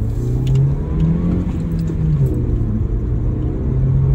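A car driving, heard from inside the cabin: engine hum and road rumble, with the engine note changing pitch a few times as it speeds up.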